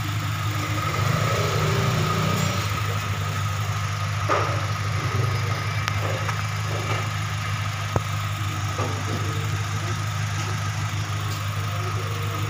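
Toyota Innova engine idling steadily, hood up, with the air-conditioning gauge hoses connected for a check of its weak air-con. A steady higher-pitched hum sits over the engine, and there is a single sharp click about eight seconds in.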